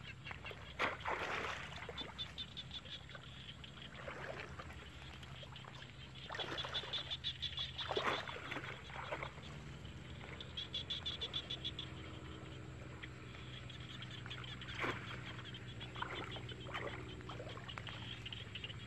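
Shallow muddy water splashing and sloshing in bursts as a person wades and gropes with the hands for fish. Behind it runs a rapid pulsing trill that comes and goes, over a steady low hum.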